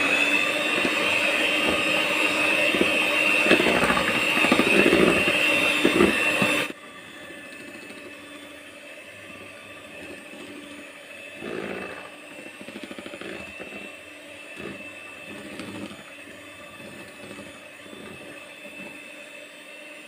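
Electric hand mixer running at medium speed, its beaters whipping a thick butter cream in a plastic bowl: a steady motor whine that drops sharply in loudness about seven seconds in and runs on quieter at the same pitch.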